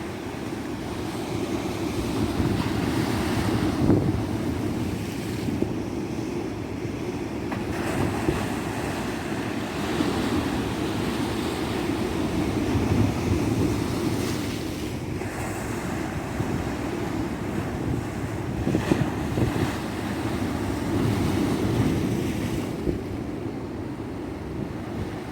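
Ocean surf on a tropical beach: waves breaking and washing in, the noise swelling and easing every few seconds, with wind rumbling on the microphone.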